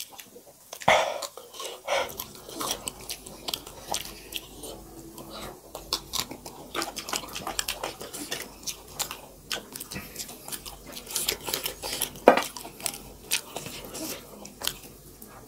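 Close-up eating sounds of maize dhido and chicken curry eaten by hand: chewing with many short wet mouth clicks, and fingers squishing food against steel plates. One sharper, louder knock comes about three-quarters of the way through.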